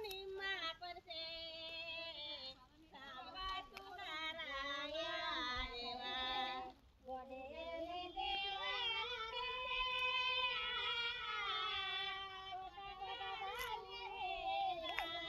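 A female voice singing a folk song unaccompanied, with a brief pause for breath about seven seconds in and a long held note after it.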